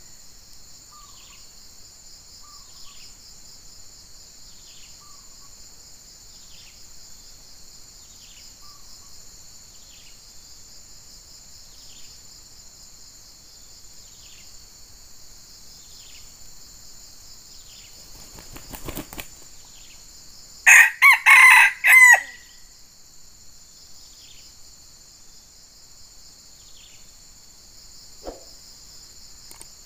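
A red junglefowl rooster crows once, about two-thirds of the way in: a short, broken crow lasting about a second and a half. A brief rustle comes just before it. Behind it runs a steady high drone of insects, with faint short chirps repeating every couple of seconds.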